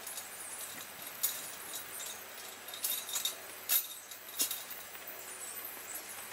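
Galvanized steel sheep hurdle panels clinking as they are handled and coupled together: a series of sharp, light metallic clinks over a steady hiss.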